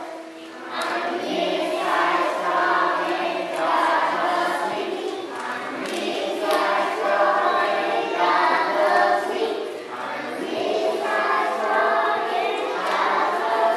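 A group of young children singing a song together as a choir, in phrases with short breaks between them.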